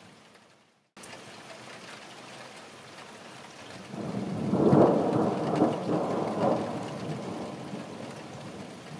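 Thunderstorm: steady rain, with a long roll of thunder that swells about four seconds in and slowly dies away.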